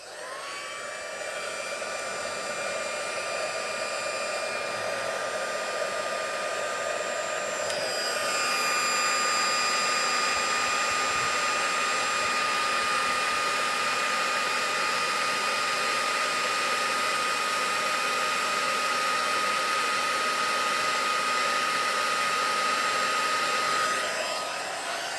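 Embossing heat gun blowing steadily, its fan whine rising as it spins up at the start, stepping up a little in pitch and loudness about eight seconds in, and winding down near the end. It is melting clear embossing powder on a small paper image.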